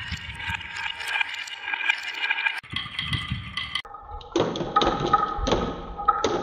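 Glass marbles rolling and clattering round a wooden spiral track, a dense continuous rattle with a ringing edge. About four seconds in, this gives way to separate sharp clacks, roughly two a second, as marbles roll along a wavy wooden track and drop into a plastic toy dump truck's bin.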